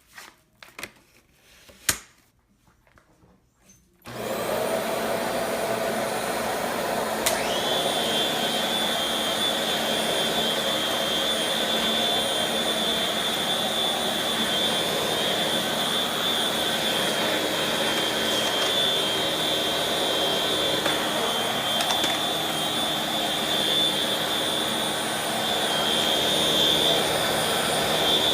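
A few faint clicks, then about four seconds in a Bissell Pet Hair Eraser 1650A upright vacuum switches on and runs steadily. A few seconds later a high whine rises quickly and holds.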